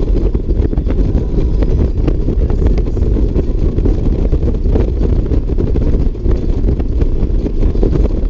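Touring motorcycle cruising at highway speed: a steady, loud rumble of engine, tyre and wind noise, with wind buffeting the microphone.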